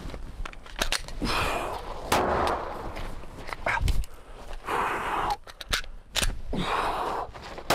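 A pistol being fired: a string of sharp shots at uneven intervals, some close together in quick pairs, as the shooter fires from cover and moves between positions.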